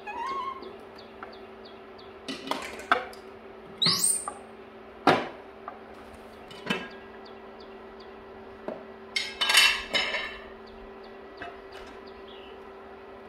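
Dishes and utensils clinking and knocking in separate sharp strikes, with a quick cluster of clatter near the end, over a steady low hum.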